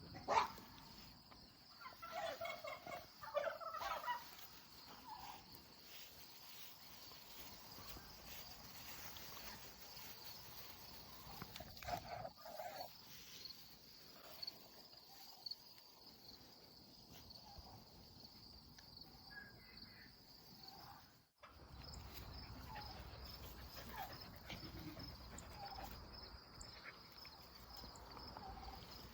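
Faint outdoor animal sounds: a steady high chirring of insects, with a few short animal calls about two to four seconds in and again about twelve seconds in. The sound breaks off briefly about two-thirds of the way through.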